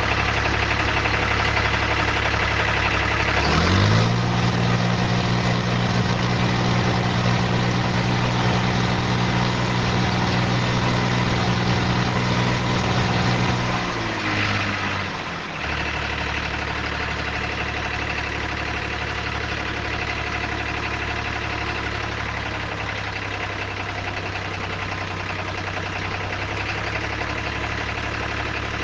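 Tractor engine sound idling steadily, revving up about three and a half seconds in, holding the higher speed for about ten seconds, then dropping back to idle.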